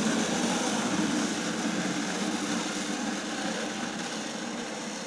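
Hard wheels of an unpowered gravity-racing cart rolling on asphalt: a steady rolling noise that fades gradually as the cart moves away downhill.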